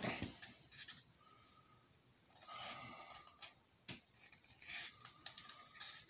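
Pencil point scratching along the edge of a small round craft piece as it is turned, scoring a guide line into it. Faint, in short scratchy stretches with a few light clicks.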